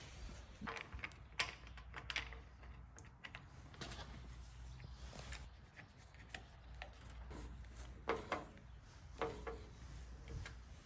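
Faint, scattered light clicks and knocks of small hard parts being handled, irregular and a few a second at most.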